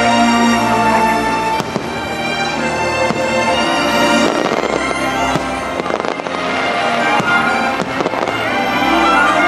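Aerial fireworks bursting overhead, several sharp bangs and crackles, over the show's loud music soundtrack.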